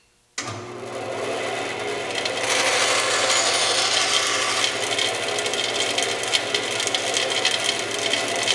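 Band saw switched on, its motor starting with a steady hum, then the blade cutting straight through a wooden board for about two seconds to take off a relief-cut piece. After the cut the saw keeps running, with light ticking.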